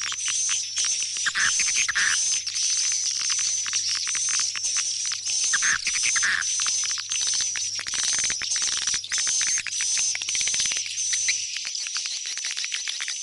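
Swiftlets calling: a dense, rapid chirping, steady throughout, with a few lower, stronger calls standing out about one and a half and six seconds in. This is the swiftlet call sound used to lure swiftlets back into a swiftlet house.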